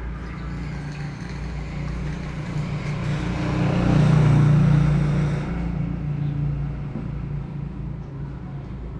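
Road traffic: a steady low vehicle rumble, with one motor vehicle passing close, swelling to its loudest midway and fading again.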